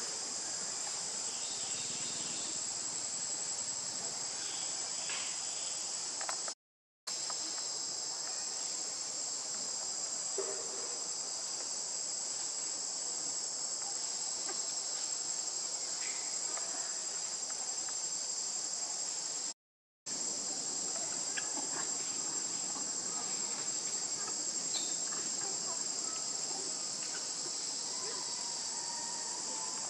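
Steady, high-pitched drone of forest insects, unbroken except where it cuts out abruptly for a moment twice.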